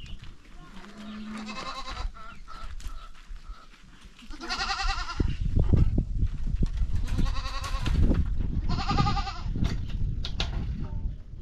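Sheep bleating: four quavering calls, the loudest about halfway through and another near the end, over a low rumbling noise in the middle.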